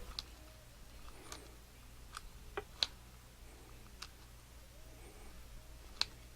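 A few faint, sharp clicks and light taps, scattered about once a second, from gloved hands pressing epoxy putty into a metal part.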